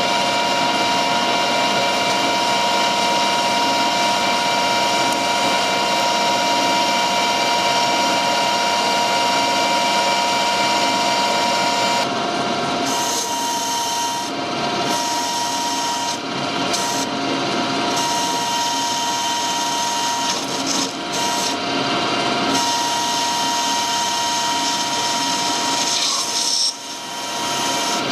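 Metal lathe running under power with a steady multi-tone whine while the threading tool takes the final pass on a coarse 4 TPI thread. The sound changes about twelve seconds in and dips briefly near the end.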